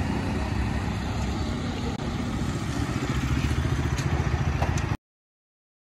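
Motorcycle engine running with a low, pulsing rumble, broken briefly about two seconds in and cut off abruptly near the end.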